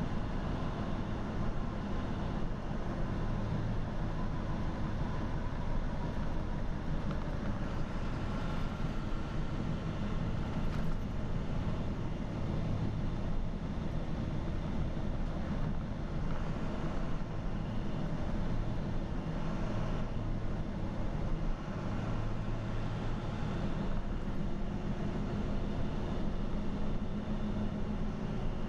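Steady road and engine noise inside a vehicle cruising on an interstate highway: a low rumble of tyres and engine drone that holds even throughout.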